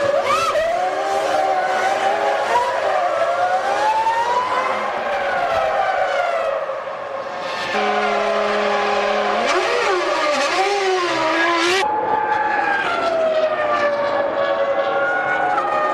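Formula One cars' 3-litre V10 engines at high revs, their pitch rising and falling through gear changes and over one another. The sound shifts abruptly twice, near the middle and about three-quarters through.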